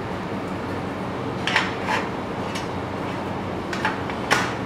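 Black steel cabinet struts and frame parts clinking and knocking together as they are handled and set in place, about five sharp metallic knocks, the loudest near the end, over a steady low hum.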